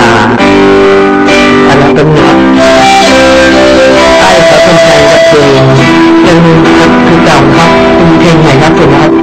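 A recorded song playing loud and steady, with plucked and strummed guitar to the fore: the master mix of a new song.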